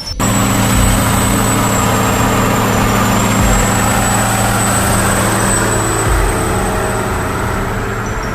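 Heavy diesel machinery running steadily: a deep, even engine drone with a thin high whine above it, cutting in abruptly just after the start.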